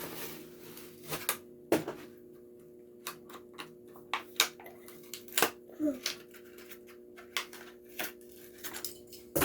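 Plastic blister packaging of a die-cast toy car being pried and torn open: irregular sharp clicks and crackles of the stiff plastic, several louder snaps scattered through, over a faint steady hum.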